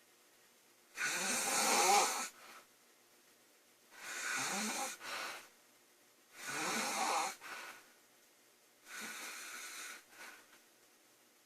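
A woman snoring in her sleep: four snores, roughly one every two and a half seconds, with quiet breaths between them. The last snore is softer.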